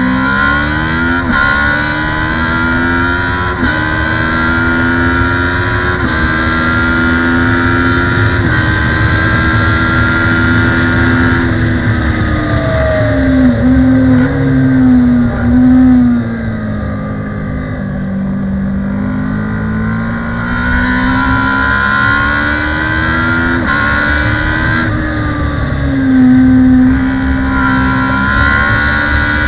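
Kawasaki ER-6 649 cc parallel-twin race bike at full throttle, its engine note climbing and dropping sharply at each upshift every two to three seconds. About halfway through it backs off, with the revs falling and short blips on the downshifts, then it accelerates and climbs up through the gears again, with wind rush over the onboard microphone.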